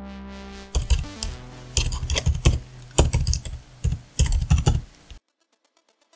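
Irregular clicking keystrokes, like typing on a computer keyboard, over a low steady musical tone. The clicks stop about a second before the end, leaving near silence.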